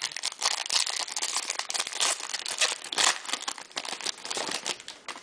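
Shiny foil trading-card wrapper being torn open and crinkled by hand: a dense, irregular crackling rustle that dies down just before the end.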